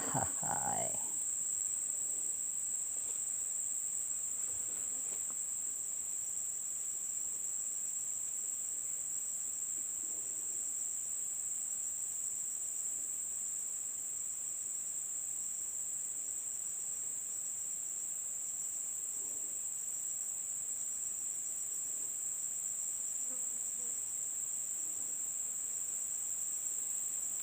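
Steady, high-pitched chorus of insects such as crickets or cicadas, droning without a break.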